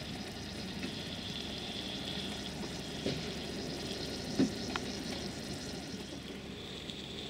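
Steady hiss of steam from a miniature live-steam locomotive modelled on LMS Royal Scot 46103, standing in steam, with a couple of short knocks about three and four and a half seconds in.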